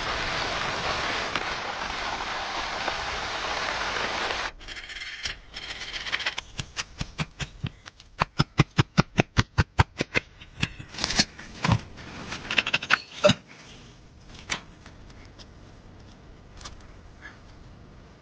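A steady rushing noise cuts off abruptly, then a quick, even run of sharp strikes on wood, about three a second, like chopping. A few scattered louder knocks follow.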